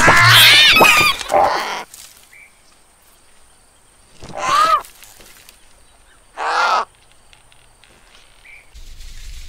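Cartoon bird sound effects: a crowd of chicks squealing and chirping for the first two seconds, then two short, harsh caw-like calls about two seconds apart.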